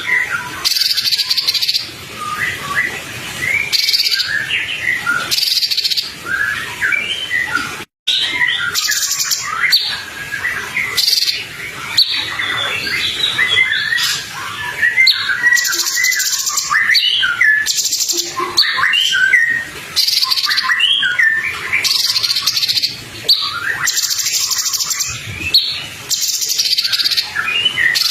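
Songbird tutor recording ('masteran'): rapid, varied twittering chirps from small songbirds layered over a cricket-like insect buzz that pulses on and off about every second and a half to two seconds. The sound cuts out abruptly for a moment about eight seconds in.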